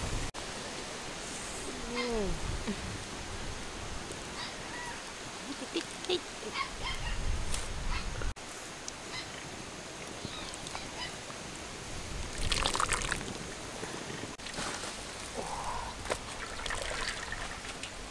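Hot water splashing and trickling as a whole duck is dunked in a wok of steaming water and lifted out dripping, scalded to loosen its feathers for plucking. There are small knocks and clicks, a brief falling call about two seconds in, and a louder splash a little past the middle.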